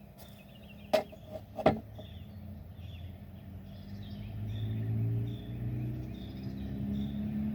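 Two sharp knocks about a second in, over birds chirping. In the second half a vehicle's engine hum grows louder, its pitch slowly gliding.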